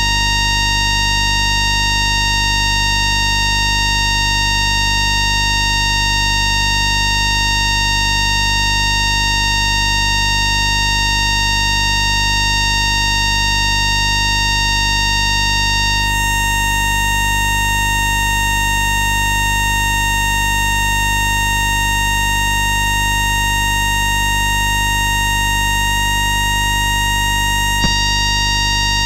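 Electromagnetic whine of an FS ALe642 railcar's ASA1 static converter, picked up by an induction coil used as a microphone: a steady chord of high electronic tones over a low hum. The highest tones change about halfway through, and there is one short click near the end.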